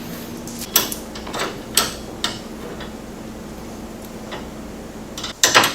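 Metal bumper support brace clinking and knocking against the UTV's front frame as it is worked into place: a few separate sharp knocks, then a louder cluster of knocks near the end.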